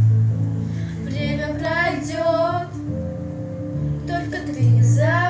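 A song: a high voice sings two long, wavering notes over a steady instrumental accompaniment.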